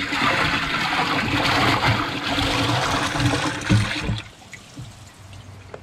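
Water poured from a plastic bucket into a half-full tub, splashing steadily for about four seconds and then stopping.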